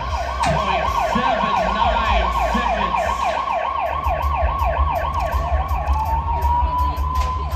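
Siren sound effect played over the arena's public-address system. It starts as a fast yelp of rising and falling sweeps, then about six seconds in changes to a slow rise into a long held wail, with a deep rumble underneath. It marks a challenge being called on the bull ride.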